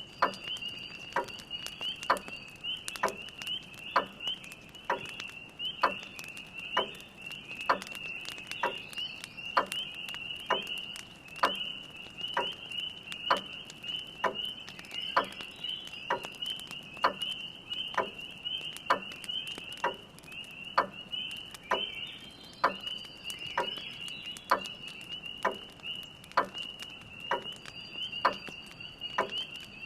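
Spring peepers calling in a steady, high-pitched chorus, over a grandfather clock's even tick about once a second.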